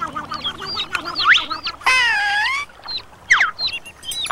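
Ducklings peeping: a string of short, high chirps that rise and fall, with one longer, louder wavering call about two seconds in.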